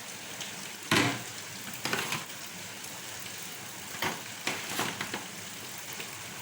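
Roasting chicken and pork pieces sizzling in a hot pan, a steady hiss with a few sharp knocks scattered through it, the loudest about a second in.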